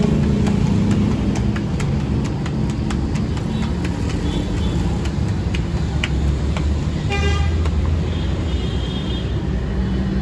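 Street traffic rumbling steadily, with a vehicle horn sounding briefly about seven seconds in. Scattered sharp clicks and ticks run through the first half.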